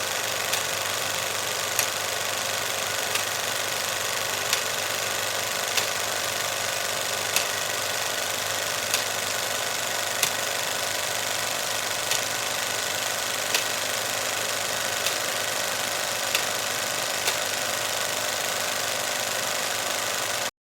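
Film camera being loaded with film, its mechanism giving a sharp click about every second and a half over a steady hiss. The sound cuts off abruptly near the end.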